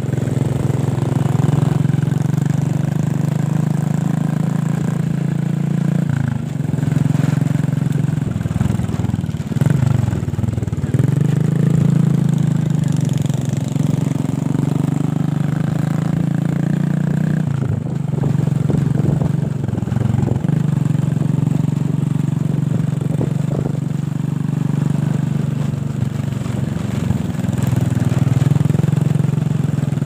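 Small motor scooter engine running steadily as it is ridden, the engine note easing off and picking up again several times as the throttle changes.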